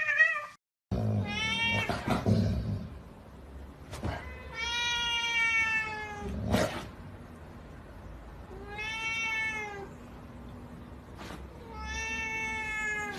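A cat meowing: four long, drawn-out meows a few seconds apart, each sliding slightly down in pitch, with a few faint clicks between them.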